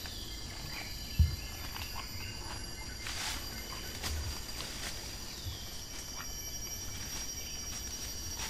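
Tropical rainforest ambience: insects keep up several steady high-pitched tones. A few low thuds sound against it, the loudest a sharp one about a second in, with a short rustle of vegetation about three seconds in.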